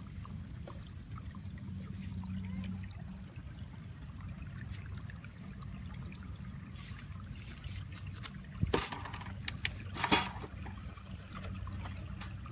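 Water trickling and splashing over a steady low hum, with two louder splashes about nine and ten seconds in.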